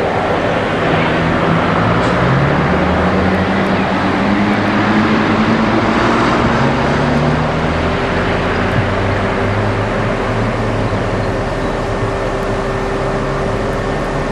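Electric locomotive running away down the line: a steady rumble with a low motor hum that glides up and down in pitch, and a steadier higher hum from about halfway.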